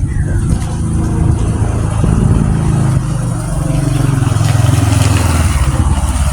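A loud engine running close by, its pitch rising and falling as it revs, over a noisy outdoor background.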